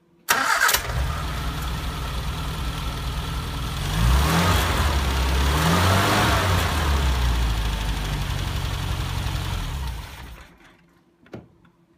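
Classic Mini's A-series four-cylinder engine starting almost at once and idling. It is revved up and down a few times from about four seconds in, settles back to idle, and is switched off near the end. This is the test start after an oil change, checking that it runs right.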